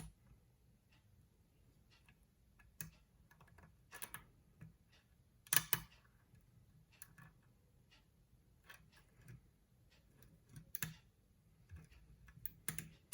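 Lock pick and tension tool working in a pin-tumbler challenge lock: light, irregular metal clicks and taps as the pins are probed and set.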